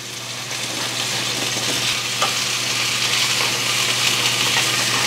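Beef chunks searing in hot oil in a steel frying pan, a steady sizzle that grows louder over the first couple of seconds, with a wooden spoon stirring and scraping red chile sauce through a wire mesh strainer.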